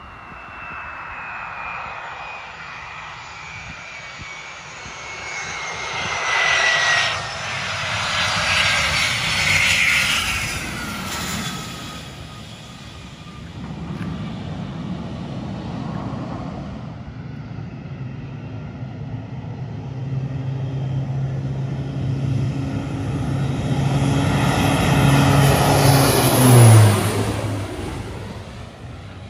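Aircraft passing. First a high turbine whine falls slowly in pitch over about ten seconds. After a cut, a twin-engine turboprop flies low overhead on landing approach: a steady propeller drone that swells and drops sharply in pitch as it passes, near the end.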